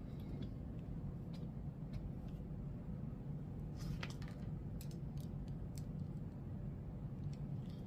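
Faint handling noise: a few light scattered clicks over a steady low hum, most of the clicks about halfway through.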